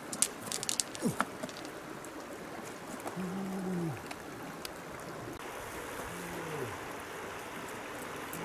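Steady rush of running water, with a few sharp clicks in the first second or so and two short low tones, about three and six seconds in, that drop in pitch at the end.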